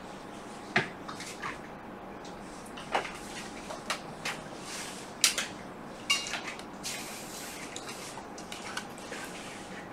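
Small clicks and taps of hands handling a MacBook Pro's display cable connectors at the logic board, scattered about a second apart, the sharpest about five seconds in, over a faint steady hum.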